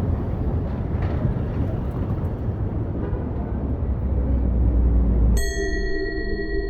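City traffic rumble with a low engine drone that swells just before a sudden cut, about five seconds in, to a held ringing tone with several steady pitches.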